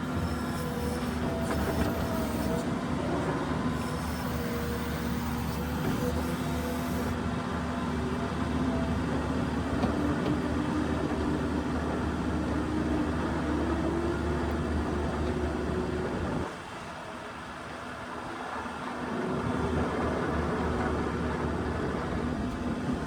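New Holland skid steer's diesel engine running under load while plowing snow, its pitch shifting as the machine works. It eases off for a couple of seconds about two-thirds through, then picks back up.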